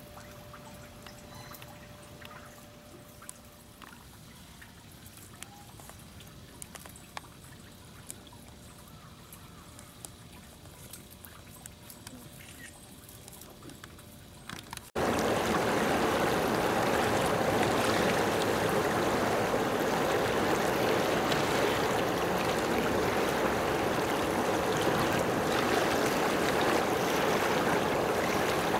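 Faint outdoor background with scattered small clicks. About halfway through it cuts abruptly to loud, steady rushing water, like a stream or waves breaking.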